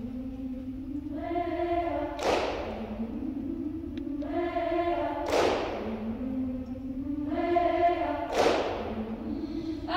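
Women's choir singing sustained chords, broken three times, about every three seconds, by a heavy thud with a long echoing tail.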